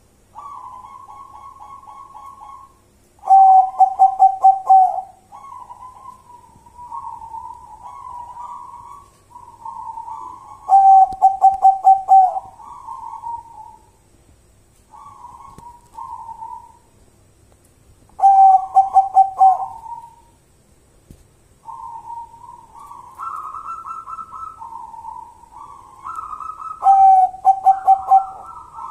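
Zebra dove (perkutut) cooing: soft rolling, warbling coos repeated throughout, broken by four louder stuttering coo phrases roughly every seven to eight seconds.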